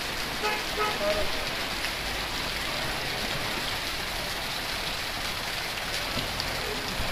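Heavy rain falling steadily onto a flooded street, a continuous even hiss of rain on standing water.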